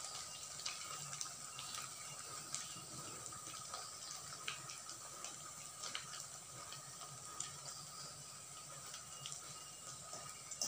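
Achappam (rose cookie) deep-frying in hot oil in a wok: a faint steady sizzle with many small scattered crackles, and a sharper click near the end.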